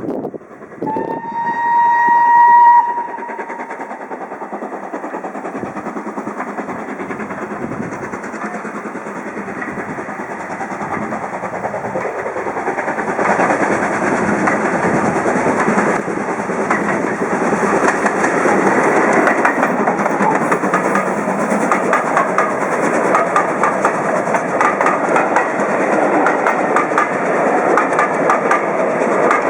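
Steam locomotive whistle sounding one long note near the start, then a steam-hauled train running past, getting louder from about halfway, with the clickety-clack of wheels over the rail joints.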